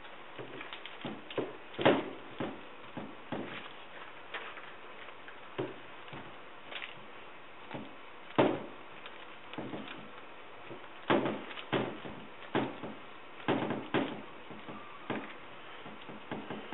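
Resin-loaded brush dabbing and stippling fiberglass mat into a deck mold, working resin through the mat's binder: wet dabs and knocks at uneven intervals, the loudest about two seconds in and about eight and a half seconds in.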